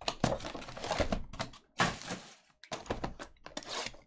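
Shrink-wrapped cardboard trading-card box being opened and handled by hand: irregular plastic rustling and cardboard scraping with a few sharp taps.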